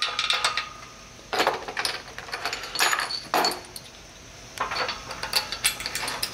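Bolt hardware clinking and ticking against the steel upright of a Rogue gym rig as it is fitted by hand, in several short runs of metallic clicks.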